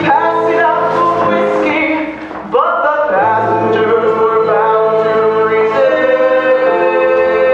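Large mixed choir of men's and women's voices singing a Broadway show tune in harmony, holding long notes. About two seconds in the sound drops for a moment, then the voices slide up into a loud held chord.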